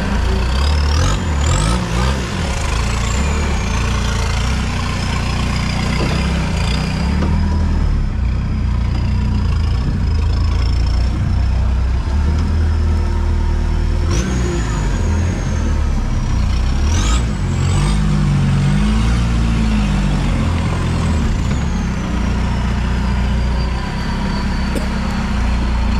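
Off-road 4x4's engine heard from inside the cab, running under load with the revs rising and falling as it crawls over rough ground. A high whine rises and falls along with the revs.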